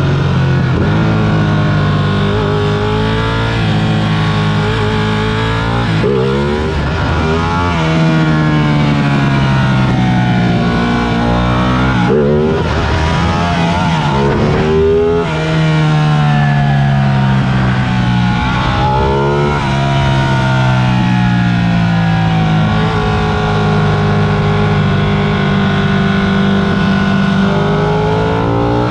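Sport motorcycle engine accelerating hard through the gears, its pitch climbing and dropping back at each shift several times over.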